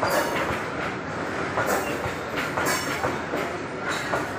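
Freight train of loaded open wagons rolling past, a steady rumble with repeated wheel clacks as the wagons cross the rail joints.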